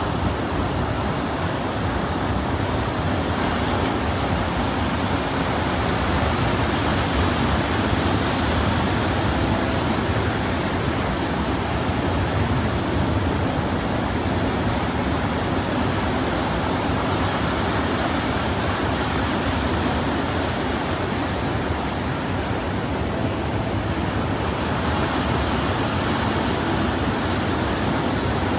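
Heavy surf breaking, with strong wind buffeting the microphone: a steady, dense rushing noise with no let-up.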